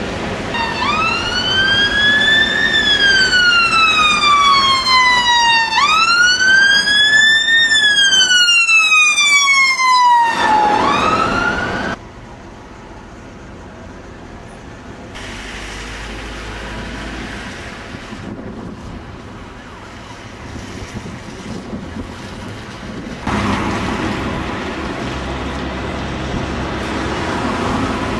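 Emergency vehicle siren wailing, slowly rising and falling in pitch in long sweeps of a few seconds each, cutting off suddenly about twelve seconds in. Quieter steady outdoor background noise follows.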